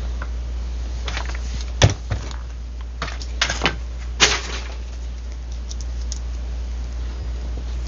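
Small tools and parts being handled on a workbench: scattered sharp clicks and knocks, loudest a little under two seconds in and again just after four seconds, over a steady low hum.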